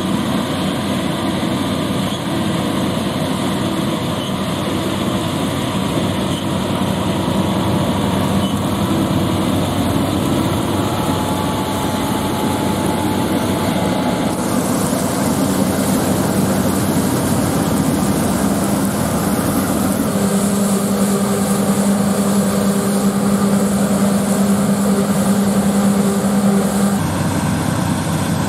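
John Deere X9 combine harvester and John Deere tractor engines running steadily in the wheat field, a continuous heavy machinery drone. The sound changes abruptly about halfway through, and a steady low hum stands out for several seconds near the end.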